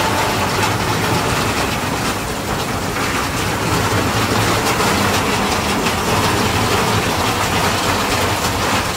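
Steady rushing noise of heavy rain and floodwater running across a flooded street.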